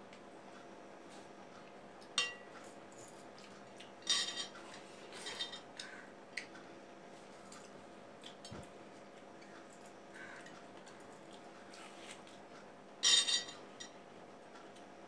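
Two people eating watermelon slices over ceramic plates: a handful of short clinks and wet bites, loudest about two, four and thirteen seconds in, over a steady faint hum.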